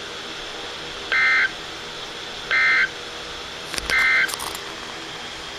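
Three short Emergency Alert System digital data bursts from a NOAA Weather Radio broadcast, about 1.4 s apart, each a buzzy two-tone warble lasting under half a second. Sent straight after the warning text, they are the End of Message code that closes the alert. A couple of faint clicks come just before the third burst.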